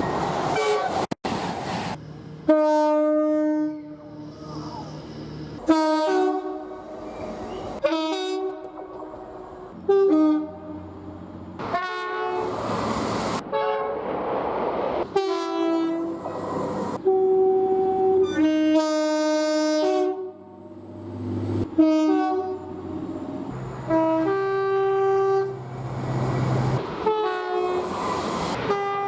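British train two-tone horns sounding in quick succession: about a dozen short blasts, each a second or two long, alternating between a low note and a high note. The blasts are joined by abrupt cuts, with the rumble of passing trains between them.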